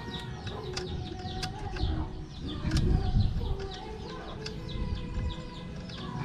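Small birds chirping over and over, about three short falling chirps a second, over a low rumble with a few sharp clicks.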